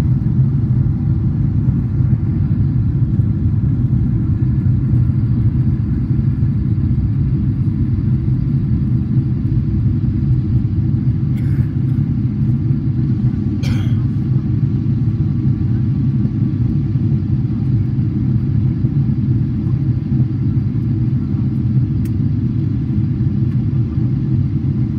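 Cabin noise of a Boeing 777-300ER on approach with its flaps extended: a steady low rumble of its GE90 engines and rushing air. A brief higher-pitched noise cuts in about 14 seconds in.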